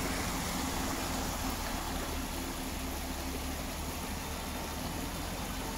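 Steady rush of muddy floodwater across a wide riverbed, with the low hum of a vehicle engine as a van and a motorcycle ford the flooded wadi.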